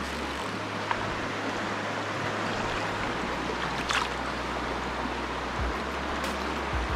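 Steady rush of a fast-flowing upper-course trout river running over stones, with a couple of faint ticks about a second and about four seconds in.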